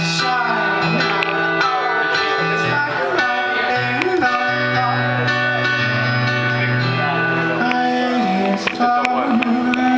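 Live song played on a Korg N1 keyboard: held chords over a sustained bass that change every second or two, with a man's voice singing over it at times.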